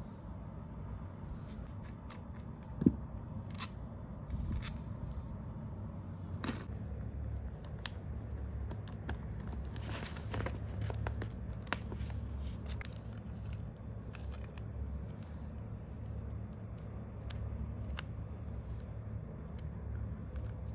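Scattered light clicks, taps and short scrapes of hand work on small parts, the sharpest click about three seconds in, over a steady low hum.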